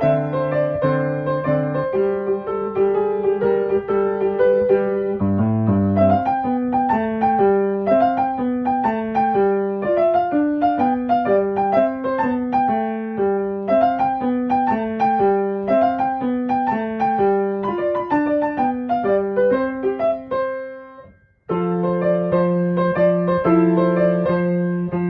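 Background piano music: a flowing run of notes over held bass notes. It fades out about 21 seconds in and starts again a moment later.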